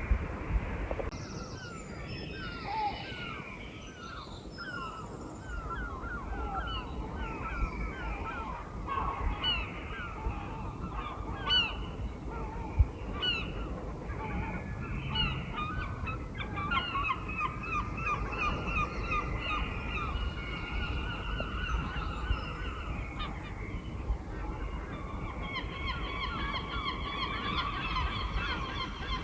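A flock of birds calling over and over: many short, overlapping honking calls that grow denser and busier about halfway through.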